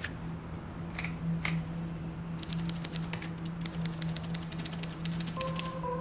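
Old typewriter being typed on: a few separate key strikes, then a quick run of keystrokes from about two and a half seconds in, over a low steady hum.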